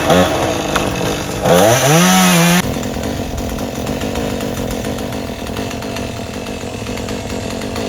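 Chainsaw engine revving up briefly about a second and a half in, the pitch rising, then dropping back abruptly to a steady idle.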